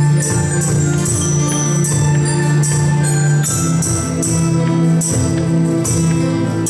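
School instrumental ensemble playing an Andean folk tune: a quick run of bright, ringing struck notes from metallophones over sustained low notes from wind instruments.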